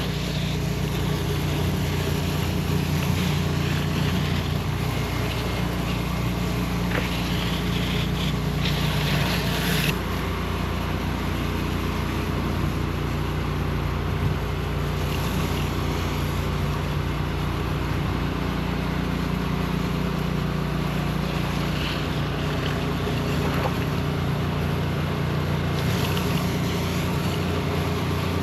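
Gas pressure washer engine running steadily under load, with the water spray hissing louder in stretches.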